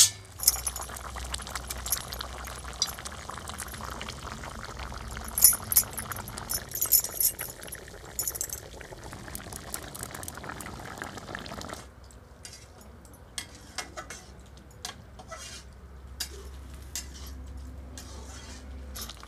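Fish curry bubbling in a steel kadai over a wood fire, with scattered sharp clinks of metal utensils. The steady bubbling stops suddenly about twelve seconds in, leaving fainter, sparser clicks.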